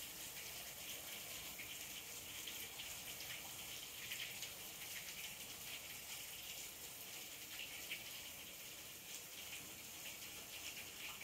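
Hard rain pouring steadily, an even hiss of drops.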